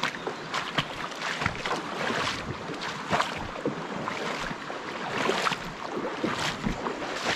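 Shallow river water splashing and sloshing close to the microphone, in irregular bursts two or three times a second over a steady rush.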